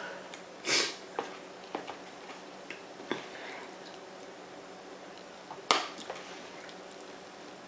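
Scattered small clicks and brief wet handling noises as a cob of boiled corn is handled over a plastic tub of seafood-boil sauce, with one sharp click a little under six seconds in.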